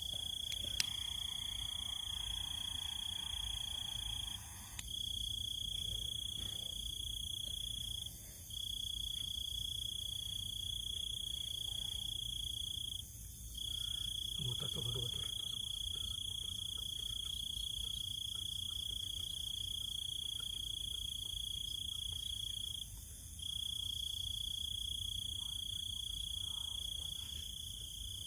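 Cricket trilling on one steady high-pitched note, broken by a few short pauses.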